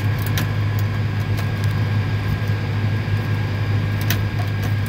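Case IH MX255 Magnum tractor's diesel engine idling steadily at about 1,000 rpm, heard from inside the cab. A couple of light clicks come about half a second in and near the end.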